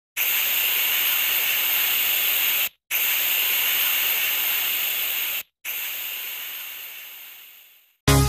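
Hissing sound effect for an animated logo intro, in three long bursts of about two and a half seconds each with short gaps between, the last fading out. Electronic music cuts in just before the end.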